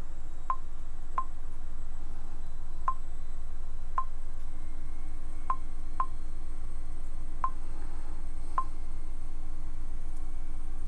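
About eight short, sharp clicks at irregular intervals as a finger taps and scrolls on a Xiaomi 11T Pro smartphone's touchscreen, over a steady low hum.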